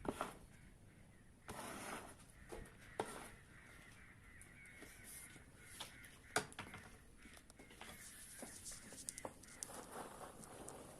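Faint bird calls, drawn out and wavering, with scattered clicks and knocks, one sharper knock a little past the middle.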